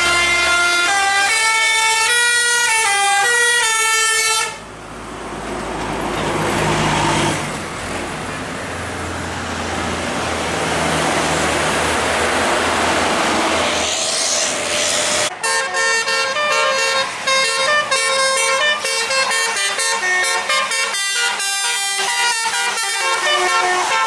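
Bus 'telolet Basuri' multi-tone musical horn playing a stepping melody. Then the bus engine and road noise go past, and a little after halfway another telolet horn melody starts in short phrases with brief gaps.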